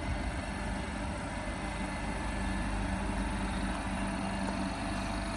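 Vande Bharat Express (Train 18) electric multiple-unit trainset passing at close range: a steady rumble of wheels on rail with a constant low electrical hum.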